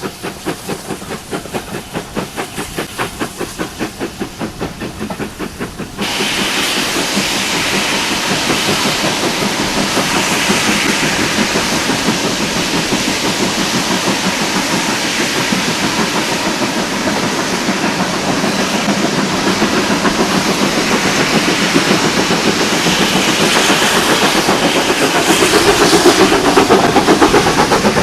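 Steam locomotive, GWR 2-8-0 tank engine No. 4270, working with a regular exhaust beat of about three chuffs a second. About six seconds in, the sound cuts to the steady rushing noise of the train running on the rails, growing louder near the end.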